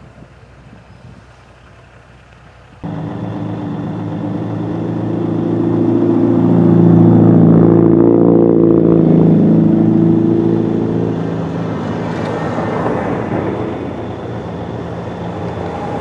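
Road traffic engine noise that starts abruptly about three seconds in: a steady, low engine hum from heavy vehicles, most likely a diesel tractor-trailer. It grows louder to a peak in the middle and eases off, with a car passing close near the end.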